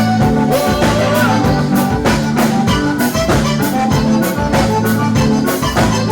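Live gaúcho dance band playing an instrumental passage: a steady drum beat of about two strokes a second under sustained melody notes.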